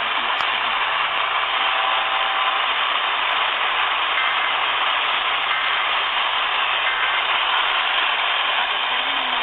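Steady, loud hiss of radio static from a receiver on a weak or empty signal, thin and band-limited, with faint traces of programme audio buried in the noise.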